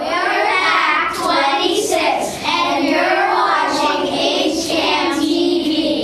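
A group of young boys singing together in unison, many voices at once.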